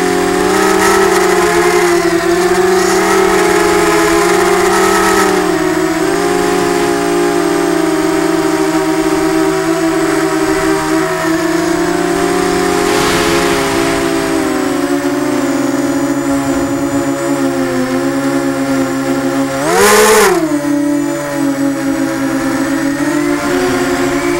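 Eachine Falcon 250 quadcopter's brushless motors and propellers whining in flight, heard from the camera on board, the pitch wavering as the throttle changes. About twenty seconds in, a brief burst of throttle sends the whine sharply higher and louder before it settles back.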